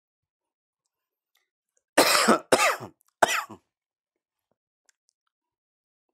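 A man coughs three times in quick succession, about two seconds in.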